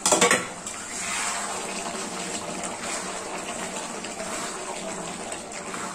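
Chicken liver and gizzard curry with water added, simmering and bubbling steadily in an aluminium kadhai as it is stirred with a spatula. A short loud knock at the start as the pan's lid is set aside.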